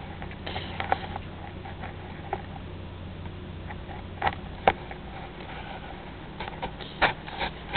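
A cat sniffing and rubbing its face against the camera, its nose and fur brushing and bumping the microphone in short sharp rustles, loudest about halfway through and again near the end, over a steady low hum.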